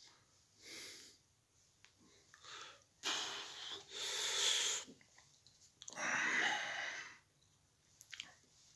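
A man's breathy exhalations and mouth noises in three noisy bursts, the longest about three seconds in and another about six seconds in, with a couple of short clicks near the end.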